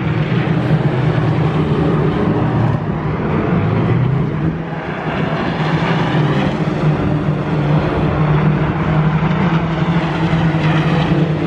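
Racing Minis' engines running at speed around the circuit: a loud, steady, continuous engine drone of several cars, dipping briefly a little way in.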